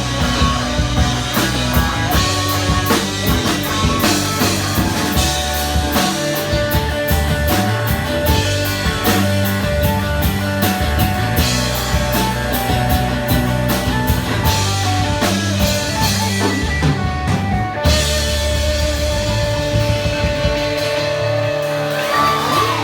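Live rock band playing: drum kit keeping a steady beat under electric guitars and bass. About eighteen seconds in the drums stop and the guitars ring out held chords.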